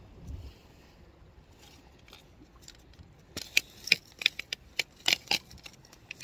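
Fishing rod and reel being worked to bring in line, giving irregular sharp clicks, a few a second, starting about three seconds in.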